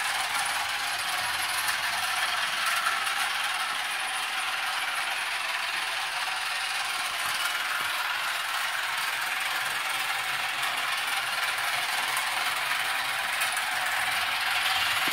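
Toy train locomotive running around its plastic track, its small motor and gears whirring and rattling steadily. It grows a little louder near the end as the train comes closer.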